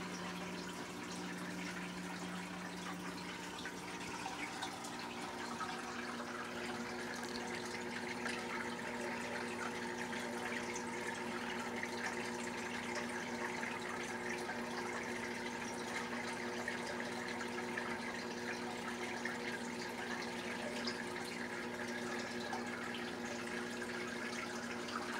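Aquarium filter running: a steady trickle and splash of falling water, with a low steady hum from its motor underneath.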